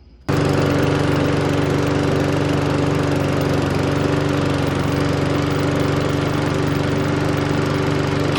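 Toro push mower's 140cc Briggs & Stratton overhead-valve engine running steadily at a constant speed, having fired off after being brought in as a no-start. The engine comes in suddenly just after the start.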